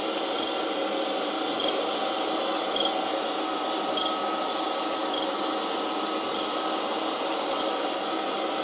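Surface grinder running, its wheel grinding dry across a steel block on the magnetic chuck as the table traverses, taking a light half-thou cut. A steady, even sound.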